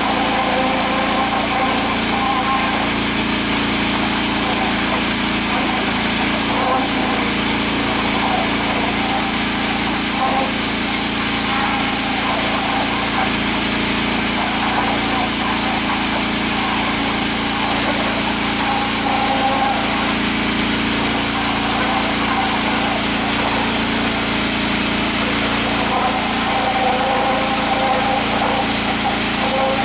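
Small gasoline engine of a pressure washer running steadily at constant speed while its wand jets water into the dirt of a trench.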